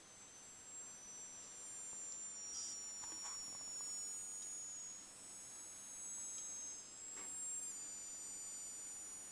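Empty cider can giving off several thin, very high whistling tones at once that slowly slide down in pitch, with a sudden step down near the end, plus a few faint crackles.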